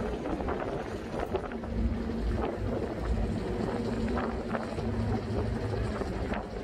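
Amphibious duck tour vehicle driving along a street: its engine hums steadily under road noise, with wind buffeting the microphone.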